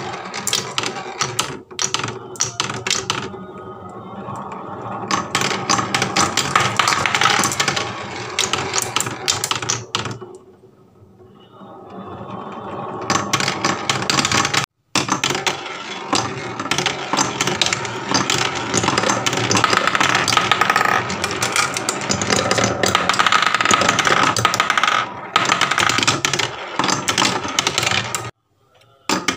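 Marbles rolling and clattering down wooden marble-run tracks and a plywood spiral: a continuous rattle of dense clicks as the balls knock against the wood and each other. It thins out about ten seconds in, then builds again.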